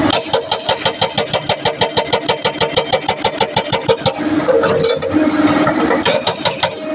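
Excavator-mounted hydraulic rock breaker hammering, a rapid even train of blows at about nine a second. About four seconds in the hammering stops and the machine's steady engine and hydraulic tone comes through, then the blows start again near the end.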